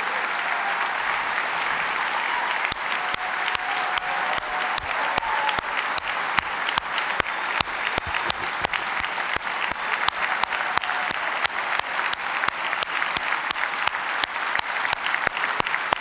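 Large audience applauding; about three seconds in, the clapping settles into a steady rhythmic clapping in unison, about three claps a second.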